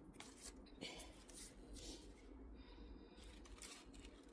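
Near silence: room tone with a few faint rustles and light taps, as of craft materials being handled.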